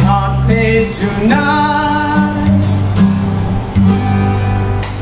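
Two acoustic guitars strumming the closing bars of a song, with a man's voice holding a long sung note in the first couple of seconds.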